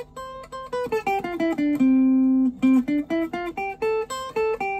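Electric guitar, a semi-hollow Fender Telecaster Thinline, playing a single-note melody line. It plays quick picked notes with a few sliding into pitch, and one note held for about a second near the middle.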